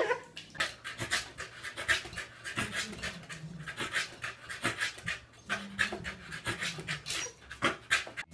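Corgi panting hard, a quick run of short breaths at a few a second.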